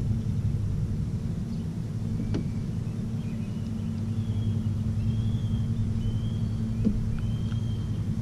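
Bass boat's motor running steadily at low speed, a constant low hum, while the boat moves slowly along the river. Short high whistles come in a few times from about three seconds in.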